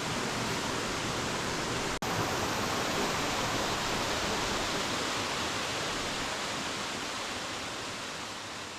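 Steady rushing roar of a waterfall, an even wash of falling water. It drops out for an instant about two seconds in and begins to fade near the end.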